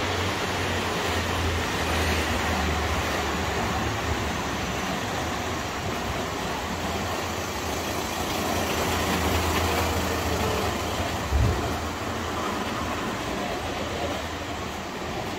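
Steady rumble and hiss of city road traffic, swelling and easing, with a single low thump about eleven seconds in.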